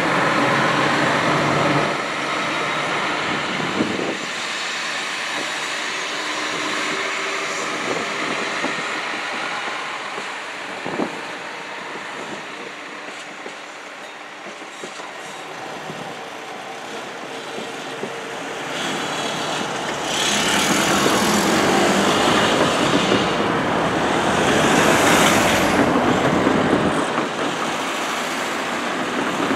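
SA134 diesel railbuses running slowly on the track, engine and wheel noise with a few faint knocks. From about twenty seconds in, a louder rush of a road vehicle passing close swells and fades.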